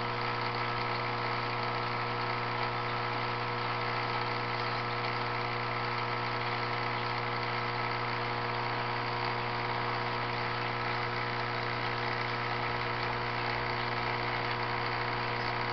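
Aquarium pump humming steadily: a constant low hum with several steady higher tones over it.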